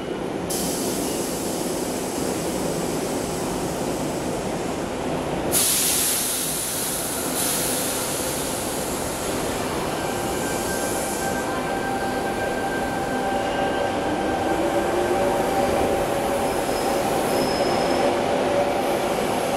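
Sydney Trains C-set double-deck electric train pulling away from the platform: steady running noise, a burst of hiss about five seconds in, then a whine in several steady tones that rises slowly in pitch as it picks up speed.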